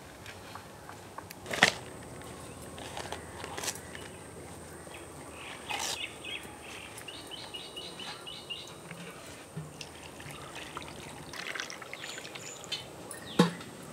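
Water poured over whole silver biddy fish in a clay pot, splashing and trickling, with a few sharp knocks as the fish and pot are handled, the loudest near the end. About halfway through, a bird chirps in a quick series of high notes.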